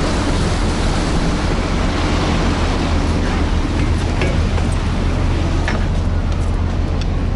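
Harbour ferry's engine running with a steady low hum under the rush of churning wake water and wind. A few light knocks of footsteps on the steel stair treads come about four and six seconds in.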